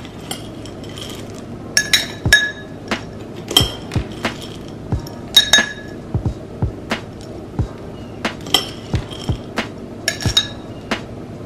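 Metal spoon clinking against a drinking glass and a bowl while small puffed cereal balls are spooned into the glass. It is a string of sharp clinks, several of them ringing briefly.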